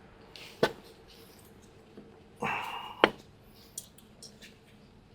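Two sharp knocks about two and a half seconds apart, the second the louder, from tools striking parts during the ATV rear axle teardown.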